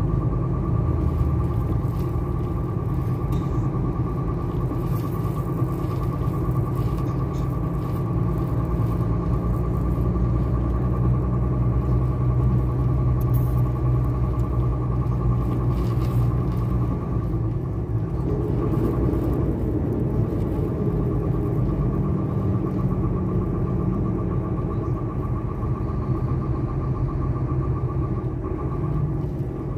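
Vehicle engine and road rumble heard from inside the cab while driving, steady throughout, with a steady high whine over it and a change in engine pitch about two-thirds of the way through.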